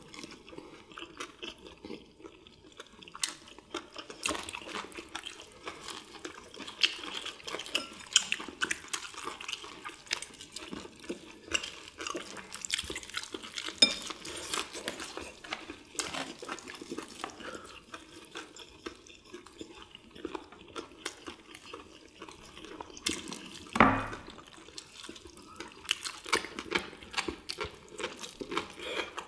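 Close-up eating sounds: crunching of fried batter on squid and chicken, wet chewing and lip smacking, with occasional clinks of dishes. A single louder knock about three-quarters of the way through.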